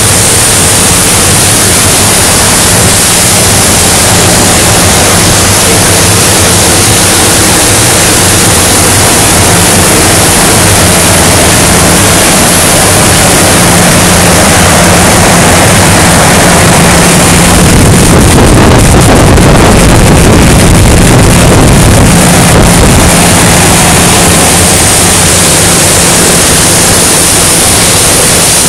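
Loud, steady industrial noise of a steel fabrication shop: an even hiss over a low machine hum, swelling louder for several seconds past the middle.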